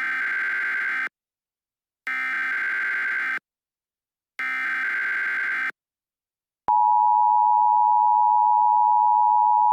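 Emergency Alert System tones. First come three SAME header data bursts, each about a second long with about a second of silence between them. Then, about seven seconds in, the steady two-tone EAS attention signal begins and holds, announcing the start of an alert message.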